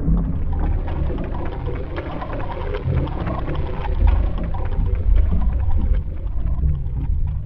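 Roland JD-990 synthesizer playing the 'Sea' patch: a rushing, surf-like wash of noise over a deep rumble, swelling and ebbing like ocean waves.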